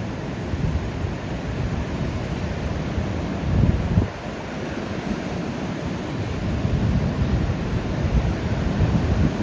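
Ocean waves breaking and washing on a beach, a continuous rush of surf, with wind rumbling on the microphone. A louder surge comes about three and a half seconds in and drops off sharply half a second later.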